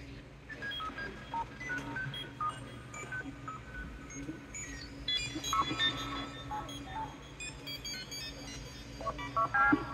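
Roland Aira S-1 synthesizer making 'computer noises': short beeps jumping to random pitches several times a second, driven by a random-waveform LFO, over a steady low hum. The beeps get busier and louder about halfway through.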